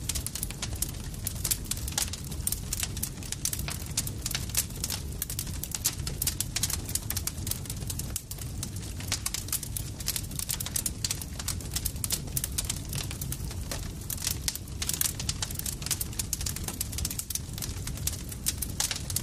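Campfire crackling: dense, irregular pops and snaps over a steady low rumble.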